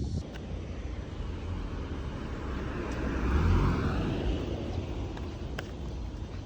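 Outdoor rumble of a vehicle passing, swelling to its loudest about three to four seconds in and then fading.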